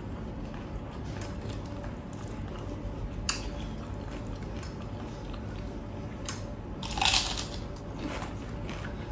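A person eating close to the microphone: chewing, a few sharp clicks, and a louder crunch about seven seconds in.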